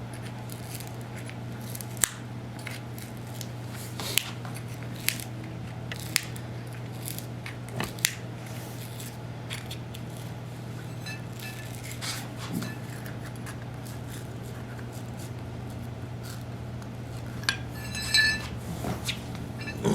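Scattered light clicks and taps of hand tools and a loose vinyl tile being handled, with a short metallic clink near the end, over a steady low hum.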